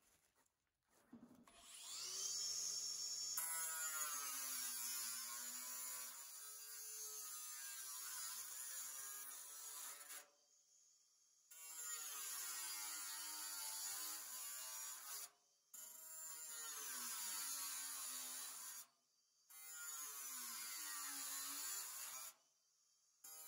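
Angle grinder cutting across a sheet of old corrugated iron. It starts about a second and a half in, its pitch sagging and recovering every couple of seconds as the cut goes on, and it stops briefly three or four times.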